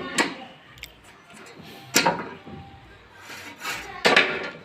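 Three sharp wooden knocks about two seconds apart, the last one a little longer and louder.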